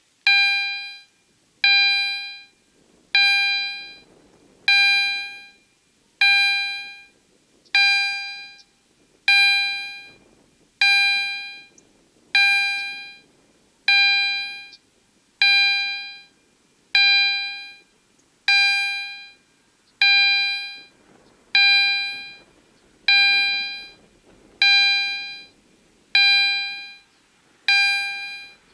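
Level-crossing warning bell of an SPA-1 ZWUS crossing system (EHL-type bell) starting up and sounding single strikes about every one and a half seconds, each ringing out and fading before the next. It signals that the crossing has been activated for an approaching train.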